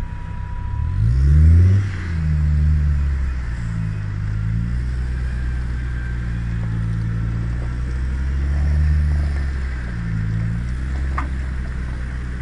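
Land Rover Defender engine pulling through deep mud ruts: the revs climb steeply about a second in, then hold under load with slow rises and falls as it works along the rutted track.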